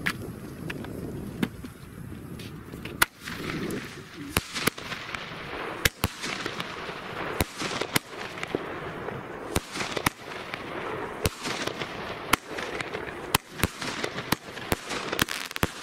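A 16-shot 'Magic Djinn' firework cake firing: a string of sharp bangs, roughly one a second and irregularly spaced, as its shells launch and burst, over a steady hiss.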